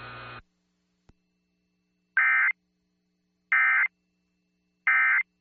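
Three short bursts of Emergency Alert System SAME data tones, the end-of-message code, marking the end of the alert; each burst lasts under half a second with about a second of silence between. A faint hiss cuts off about half a second in.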